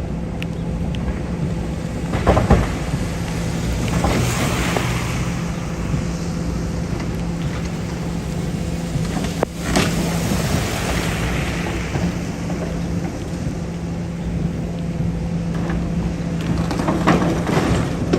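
Building demolition: a heavy demolition machine's engine running steadily under a low drone, with crashing and crumbling of breaking debris several times, the sharpest about two and a half seconds in and near ten seconds, and a longer spell of crunching near the end.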